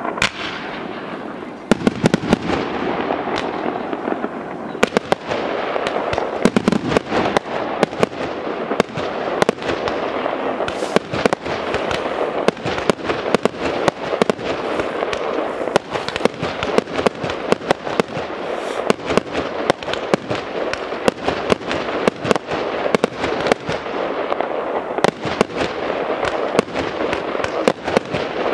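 A professional fireworks display: a rapid, nearly continuous run of sharp bangs and crackles from bursting shells over a steady rushing hiss. The reports are sparse for the first second or two, then come thick and fast.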